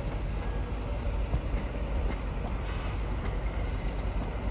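A train running by on the rails, a steady low rumble with a few faint clicks.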